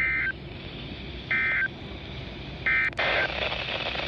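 NOAA Weather Radio end-of-message SAME data bursts, sent three times as short buzzy digital chirps about 1.3 seconds apart, marking the end of an Emergency Alert System message. Radio static hisses underneath.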